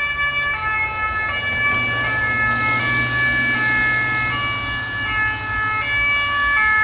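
Two-tone sirens of emergency vehicles sounding together, each stepping back and forth between two pitches, overlapping out of step with one another, over a low steady hum.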